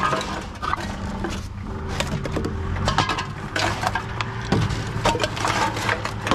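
Empty aluminium drink cans and plastic bottles clattering and knocking as they are handled and fed one by one into a TOMRA reverse vending machine, which keeps up a steady low hum as it takes them in.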